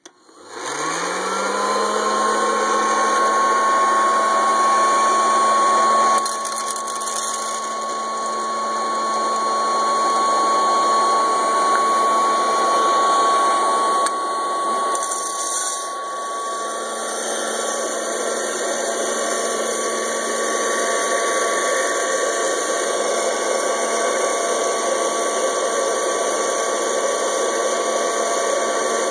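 Hot-air popcorn popper switched on with green coffee beans in its chamber: the fan motor spins up within about a second, rising in pitch, then runs as a steady whine over a rush of blown air.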